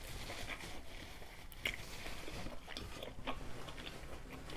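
A person chewing a mouthful of seafood boil, with a few scattered wet mouth clicks.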